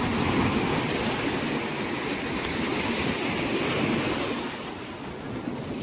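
Small waves breaking and washing up the shore, a steady rush of surf that eases a little near the end.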